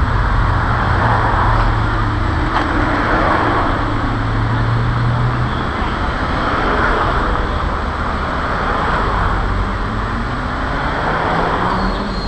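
City road traffic: several cars pass close by one after another, each a swell of engine and tyre noise over a steady traffic background, with a low engine hum in the first half.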